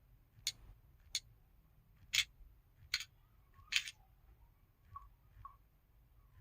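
SKY Vega Racer smartphone touch-feedback sounds: five sharp, separate clicks spaced roughly a second apart, then two fainter short beeps near the end.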